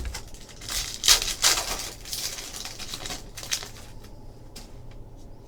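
Trading card packs and cards being handled: crinkling and rustling of a pack wrapper and cards sliding against each other, loudest in a few bursts starting about a second in.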